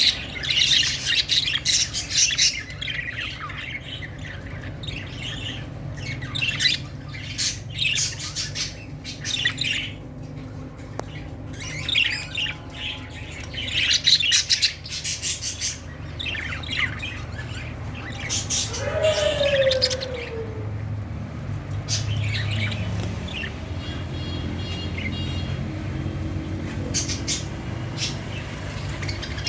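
A flock of budgerigars in breeding condition chattering and squawking in quick, irregular bursts. A steady low hum runs underneath.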